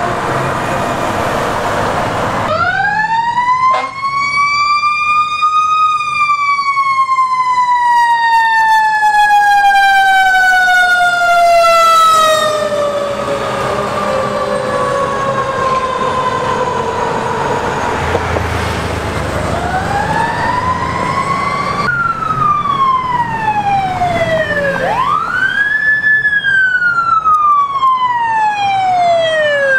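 Fire truck sirens. About two seconds in, one siren winds up and then coasts slowly down in pitch for around twelve seconds as the fire apparatus passes, in the way a mechanical siren runs down. Over the last eight seconds another siren sweeps down and up in quicker wails, over the rumble of truck engines and traffic.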